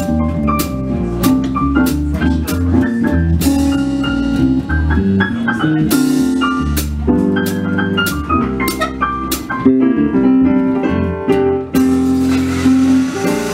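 Jazz duo of a Roland RD-700 stage piano and an electric bass playing together: piano chords and melody notes over a moving bass line. A steady hiss joins the music near the end.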